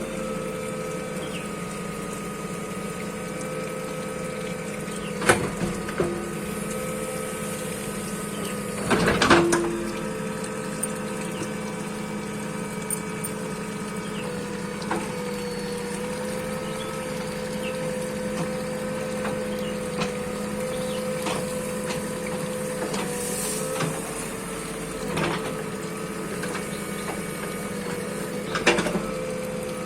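Bulldozer engine running steadily with a constant hum, broken by a few short clanks, the loudest about nine seconds in.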